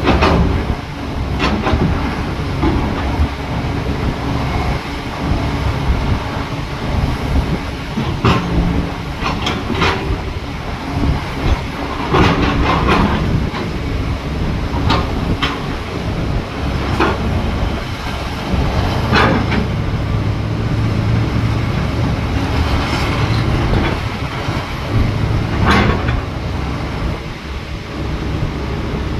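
Tracked excavator working: its diesel engine runs steadily under load, with irregular metallic clanks and knocks from the tracks and steelwork every second or few. Over the second half the engine settles into a steadier low hum.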